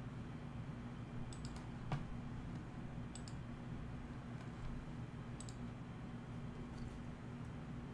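A few scattered clicks of a computer mouse and keyboard, the sharpest about two seconds in, over a steady low hum.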